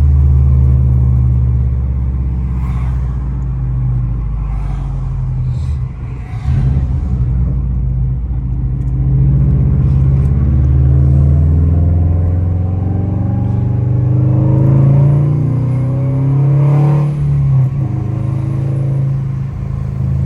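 2009 Subaru WRX's turbocharged flat-four engine running, its pitch rising and falling as it revs, with a short drop in level about six seconds in and again a few seconds before the end.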